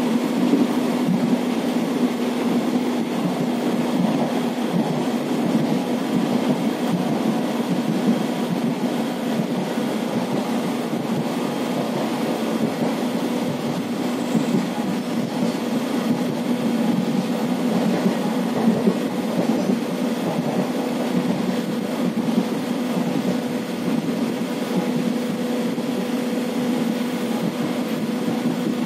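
Indian Railways express passenger coach running at speed, heard from inside: a steady rumble of wheels on rail and coach body, with a constant low hum under it.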